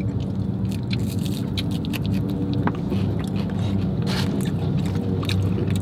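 Steady low hum of an idling car heard from inside the cabin, with scattered soft clicks and crackles of fast food being eaten and its paper packaging handled.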